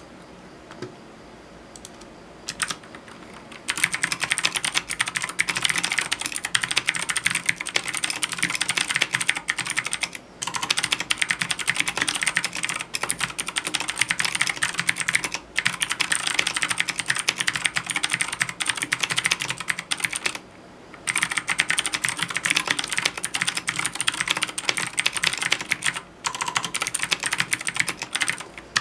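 Fast typing on a full-size Keychron mechanical keyboard fitted with PBT keycaps: a dense, continuous stream of keystroke clacks that starts about four seconds in, with a few brief pauses.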